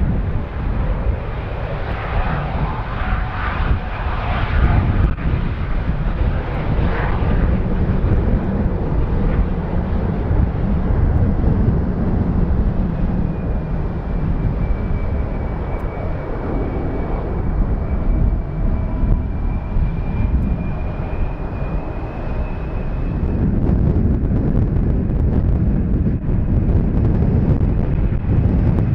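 Jet airliner engines running as the aircraft passes: a continuous deep rumble, with a thin high engine whine that holds through the middle, dipping slightly and then rising before it fades.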